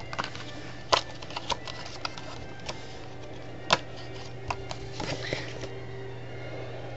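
Playing cards being handled: scattered sharp clicks and snaps of cards against the deck, the loudest about a second in and near four seconds, with a quick flurry around five seconds. A steady low hum runs underneath.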